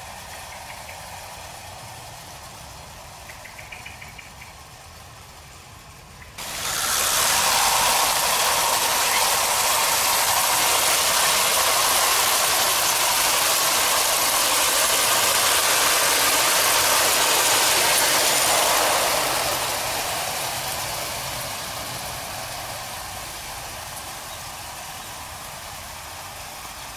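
Hornby O gauge clockwork locomotives running with a goods train on tinplate track: the steady whirr of the wound clockwork mechanisms and the rattle of wheels on the rails. The sound is faint at first, comes in loud and sudden about six seconds in as the train runs close, then fades away from about twenty seconds.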